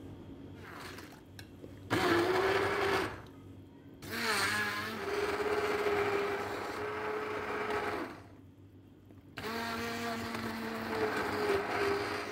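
Stick (immersion) blender running in three bursts, about one, four and three seconds long, puréeing chunks of tomato and onion into a liquid yogurt-and-lemon marinade. Its motor gives a steady hum with a clear pitch while it runs.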